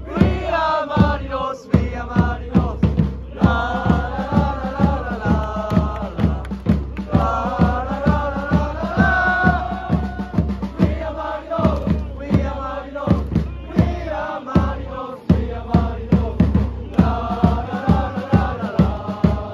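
A football supporters' section singing a chant in unison, with a steady beat underneath.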